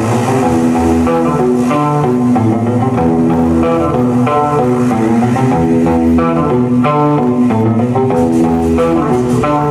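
Instrumental progressive rock played live by a band on electric guitar, bass guitar and keyboards. A quick repeating note figure runs over a steady bass line, heard from the audience.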